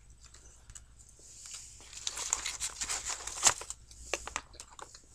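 Paper food wrapper crinkling as it is handled: quiet at first, then a dense run of crackles from about two to three and a half seconds in, followed by scattered rustles.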